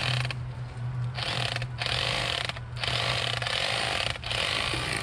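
Electric fillet knife running with a steady motor hum. Its blades rasp in a series of cutting strokes, each about a second long, as they saw through a fish fillet.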